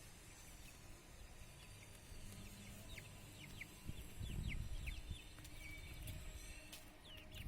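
Chicks peeping: a run of short, high, falling peeps starting about three seconds in. There is a low rumble around the middle.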